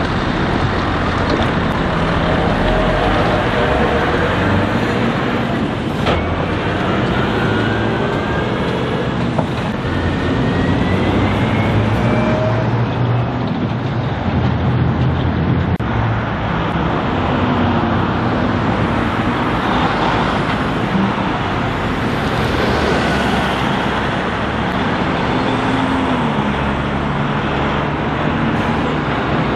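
Heavy diesel trucks pulling away and passing, among them a Scania 620 V8 livestock truck, with engines revving up through the gears over steady road traffic noise.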